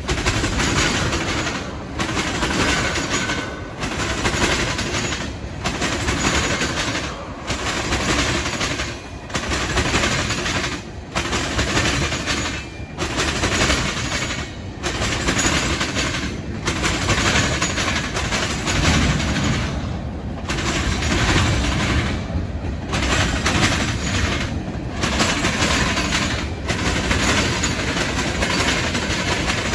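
Freight train cars rolling past at close range: steel wheels clattering over the rails with a steady rumble, the sound swelling and dipping about every two seconds as car after car goes by.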